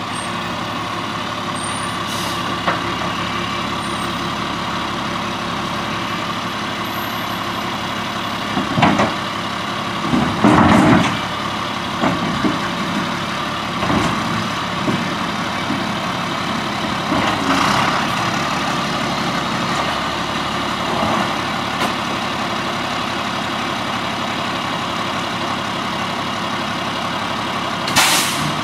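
1999 Crane Carrier garbage truck idling steadily while parked, with several short hisses of air release scattered through, the loudest around eleven seconds in.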